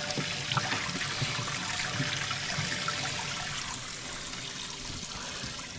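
Steady trickling and splashing of water, with a few faint light knocks.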